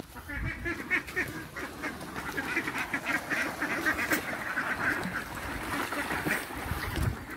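A flock of khaki Campbell ducks calling, with many quacks overlapping in a continuous chatter.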